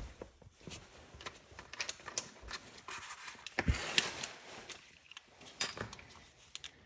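Intermittent clinks, knocks and scrapes of metal tools and parts being handled, with a louder scrape about four seconds in.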